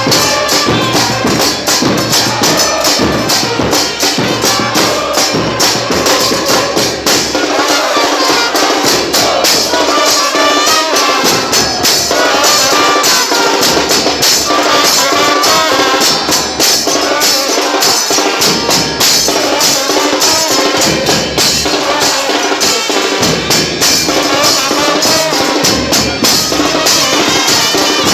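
Football supporters chanting a terrace song in unison to a fast, steady drumbeat.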